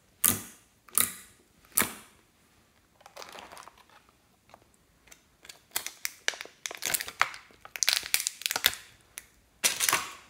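Hands pressing clear slime, giving three sharp sticky sounds in the first two seconds. Then a plastic tray of small glitter bottles is handled, with a dense run of crinkling and clicking and one more loud handling sound near the end.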